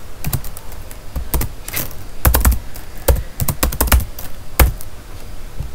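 Typing on a computer keyboard: keystrokes clicking in short irregular runs with brief pauses between them.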